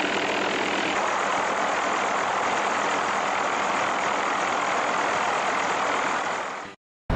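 Steady noise of a helicopter's engine and rotor heard from inside the cockpit, an even drone with a faint low hum, cutting off abruptly near the end.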